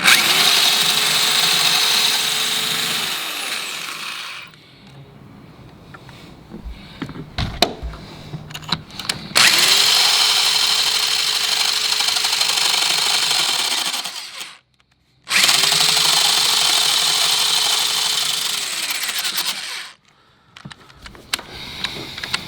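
Electric drill run three times, for about four to five seconds each, its bit grinding into a thick, multi-layer piece of steel that it is barely getting through. The motor's whine winds up at the start of each run and down at its end, with short clinks in the pauses.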